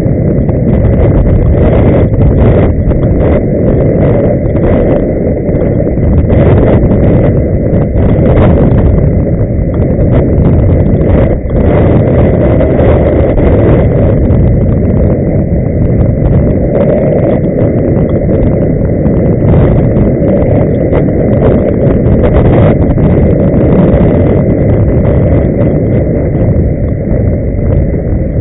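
Loud, steady low rush of inline skating on a road: skate wheels rolling on asphalt mixed with wind on the microphone, with a faint high whine held at one pitch.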